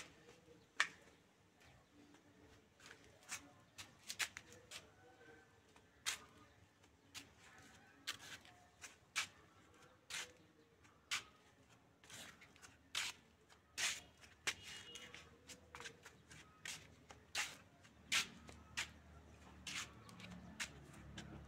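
Footsteps on a concrete path: sharp, irregular steps about one or two a second. A low rumble rises near the end.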